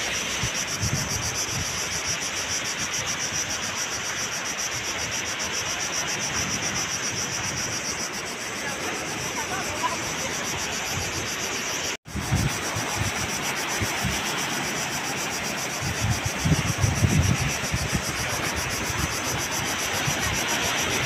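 Steady seaside ambience of surf and wind, under a continuous high insect buzz. After a brief cut about halfway, wind buffets the microphone in gusts.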